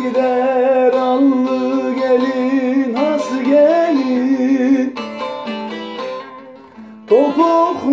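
Turkish folk song: a voice holding long wavering notes without words, with a gliding turn about three seconds in, over plucked string accompaniment. The voice drops out for about two seconds past the middle, leaving the strings, and comes back with a rising note near the end.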